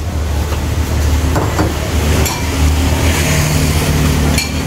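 An engine running with a loud, steady low hum; a clearer, steady engine note comes in about halfway through.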